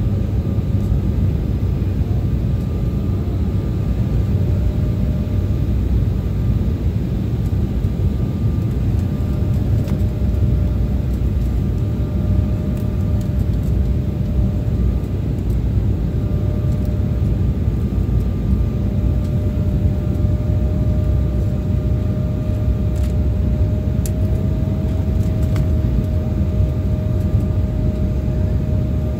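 Steady cabin noise of an Embraer 175 airliner on approach with its flaps extended: a constant low rush from the engines and the airflow, with a faint steady whine that rises slightly in pitch in the later part.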